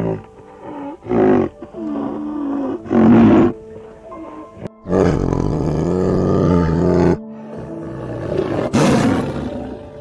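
A large wild animal roaring four times, the third roar long and drawn out, over soft background music.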